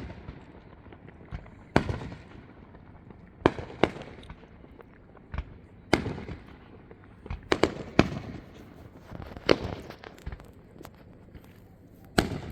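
Aerial fireworks bursting, a sharp bang every second or two, some in quick pairs, each trailing off in a brief echoing crackle.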